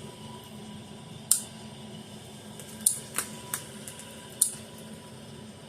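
Zareba 25 mile fence charger pulsing, a sharp click about every one and a half seconds, with a few fainter extra clicks between the pulses over a low steady hum. The irregular extra sounds are what the repairer takes as a sign that its transformer might be starting to go.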